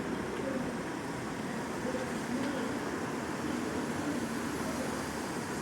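Steady street traffic noise, an even rumble and hiss of passing vehicles with no single loud event.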